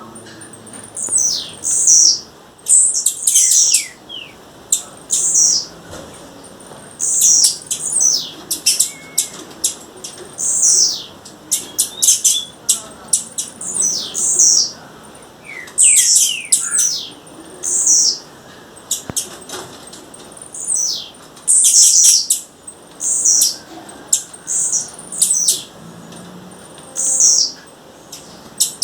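Blue-black grassquit (tiziu) calling over and over: high, sharp notes that sweep downward, mixed with clicks, in quick clusters every second or two.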